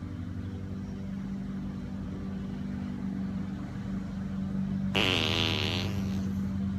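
Lawnmower engine running steadily with a low hum. About five seconds in, a loud, buzzy burst lasting about a second.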